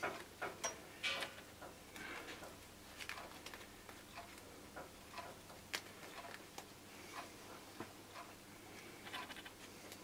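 Faint, irregular small clicks and rustles of hands handling motorcycle loom wires and black plastic protective sleeving, with a cluster of clicks in the first second.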